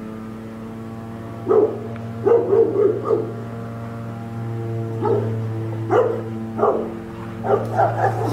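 Rottweilers barking in short bouts, several times over, at the fence line. A steady droning hum runs underneath.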